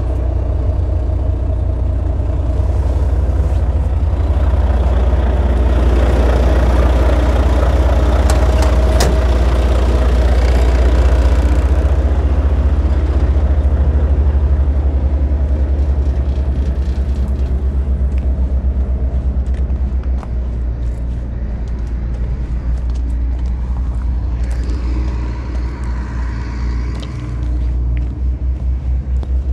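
A Volvo FM420's 13-litre six-cylinder diesel engine idling with a steady, low rumble.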